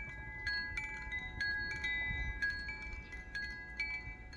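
Wind chimes ringing, struck irregularly about twice a second, each note hanging on, over a low rumble.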